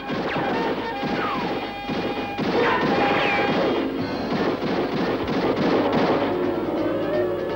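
Cartoon action soundtrack: background music mixed with musket shots and crashing sound effects.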